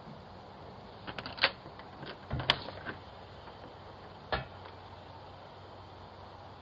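Several sharp bangs picked up by a Ring security camera's microphone: a quick cluster about a second in, the loudest single crack about two and a half seconds in, and one more a couple of seconds later. The uploader cannot tell whether they are gunshots or an engine misfire.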